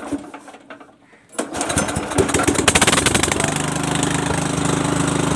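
Small petrol generator's engine starting: it catches about a second and a half in, runs unevenly for a couple of seconds, then settles into a steady run.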